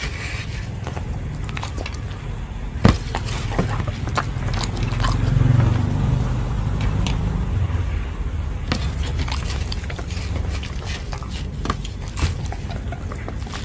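A dog biting and chewing food, with irregular sharp crunches and clicks, over a low rumble that swells about five seconds in.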